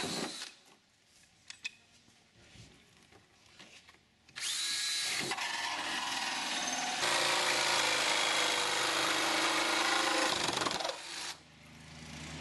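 DeWalt jigsaw cutting through a fiberglass cowling, starting about four seconds in after a few seconds of near silence with light clicks. It grows louder about seven seconds in and stops shortly before the end.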